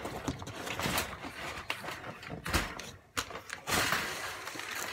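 A large cardboard box being pulled and torn open, with the cardboard rustling and scraping in a series of rough bursts and one sharp click a little after three seconds.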